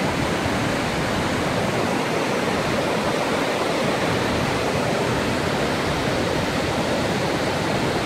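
Låtefoss twin waterfall: a steady, even rush of heavy falling water.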